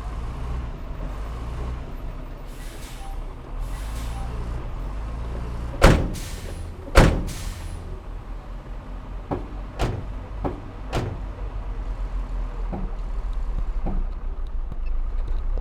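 Diesel engine of heavy earthmoving machinery running steadily. Two loud metallic clanks come about six and seven seconds in, followed by several lighter knocks.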